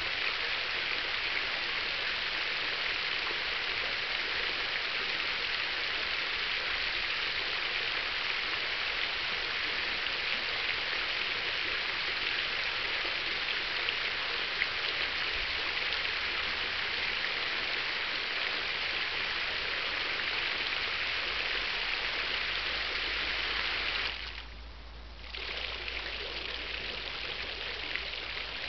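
Garden fountain's jets of water splashing down into its basin: a steady hiss of falling water from a central brass cascade nozzle and a ring of arching spray jets. About three-quarters of the way through, the splashing drops away for about a second as the electronic controller changes the water pattern, then returns quieter with only the low ring of jets playing.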